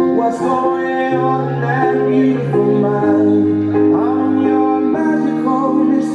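Music: a song with singing over sustained instrumental chords.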